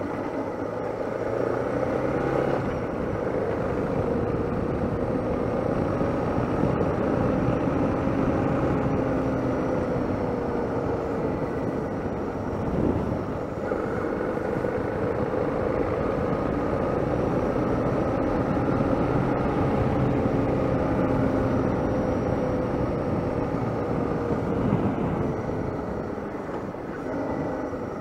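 Suzuki DR650's single-cylinder four-stroke engine running under way, its note drifting up and down with the throttle, over a steady rush of wind and road noise.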